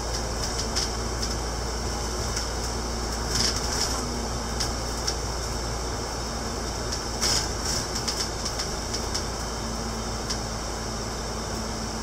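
Steady running noise inside the upper deck of a double-decker bus cruising on a highway: engine hum, tyre noise and air-conditioning, with a few brief rattles or clicks from the bus body.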